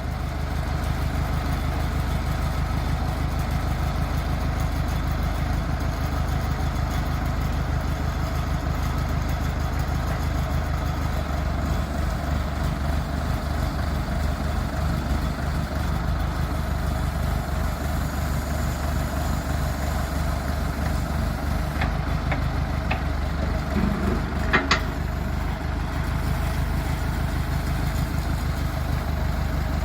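Massey Ferguson 275's Perkins four-cylinder diesel idling steadily and smoothly, with one sharp knock late on.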